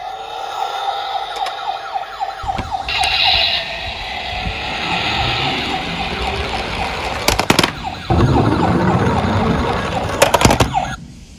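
Battery-powered toy ambulance sounding its electronic siren, a fast repeating wail. Partway through a low rumble joins it, which grows after about 8 seconds as the toy's plastic wheels roll down the wooden slope. There are two sharp knocks, and the siren falls away near the end.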